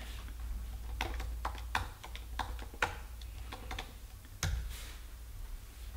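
Laptop keyboard typing: an uneven run of light key clicks as a search phrase is entered, with one louder click about four and a half seconds in, over a steady low hum.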